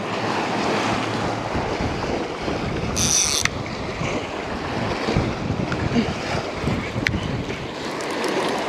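Gulf surf washing on the beach, with wind buffeting the microphone. A brief high-pitched buzz about three seconds in and a sharp click near seven seconds.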